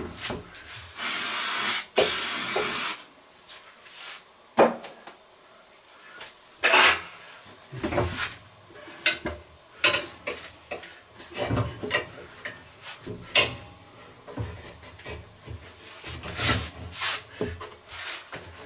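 An aerosol can of silicone spray hisses for about two seconds, lubricating a tyre bead so it will slide off the rim. Irregular knocks, rubs and clanks follow as the tyre is turned and levered on the rim of a tyre-changing machine.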